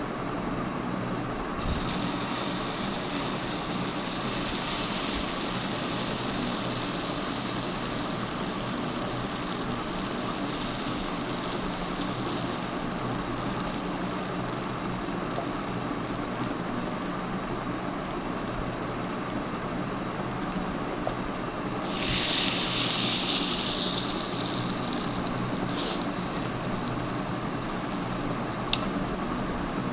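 Waffle batter sizzling on the hot plates of a Takada ISB-068 electric waffle maker as it is poured, over a steady background hum. A louder burst of hissing comes about two-thirds of the way in, and a single sharp click near the end.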